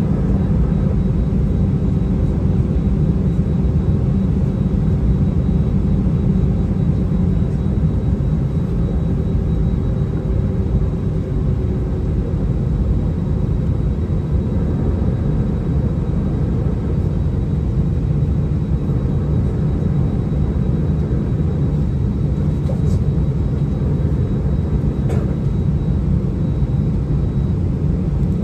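Steady, loud rumble of an Airbus A319's engines and airflow heard inside the passenger cabin, with a faint hum that fades out about twelve seconds in.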